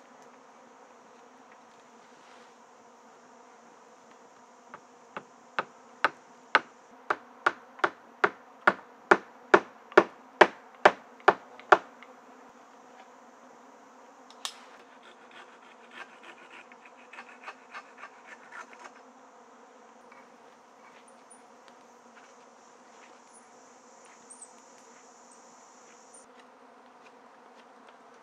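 Hammering on wood: about eighteen evenly spaced knocks, two or three a second, growing louder, then a single sharp click and a few lighter taps. Insects buzz and trill steadily behind them.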